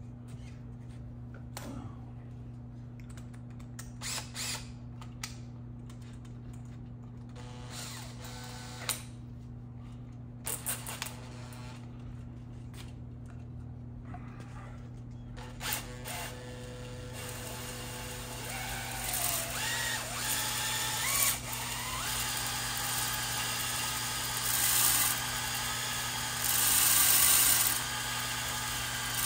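Electric drill spinning a ball-type cylinder hone inside an engine bore, honing the cylinder wall to a cross-hatch. Short bursts at first, then from about halfway it runs continuously, its speed rising and falling, louder near the end.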